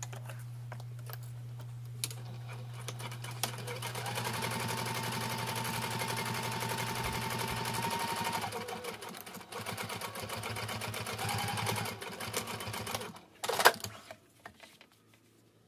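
Domestic sewing machine stitching a seam through cork fabric. It starts about four seconds in and runs steadily for several seconds, then goes on in a few shorter stop-start runs. A single sharp click near the end is the loudest sound.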